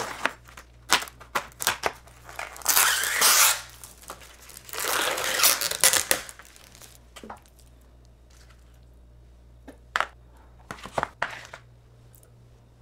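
Plastic film on a supermarket meat tray being cut with a knife and pulled off, crinkling and tearing in two long stretches, with light clicks of the plastic tray. A few short knocks follow near the end.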